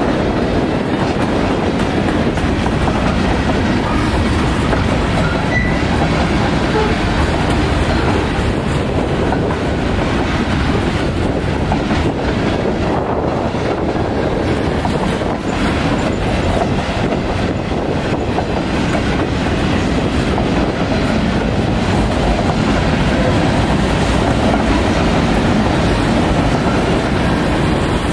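Freight cars rolling past a grade crossing: a steady, loud noise of steel wheels on rail, keeping the same level throughout.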